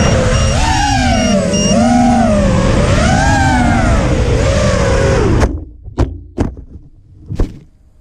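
Eachine Falcon 250 quadcopter's brushless motors whining, their pitch rising and falling with the throttle. About five and a half seconds in the motor sound cuts off abruptly, followed by three sharp knocks: the quad has crashed into dry grass.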